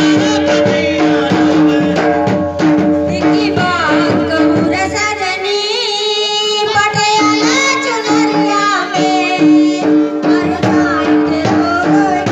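A song with a singer over a steady drum beat, played for dancing. About five seconds in, the bass and drums drop away for a moment under a high sung line, then come back.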